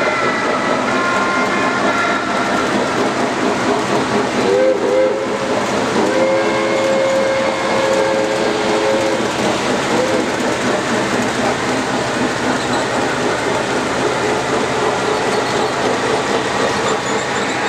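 Model train sounds on an O scale layout: a steady clatter of running trains, with two short whistle toots about four and a half seconds in, then a long whistle blast of about three seconds and one more short toot right after.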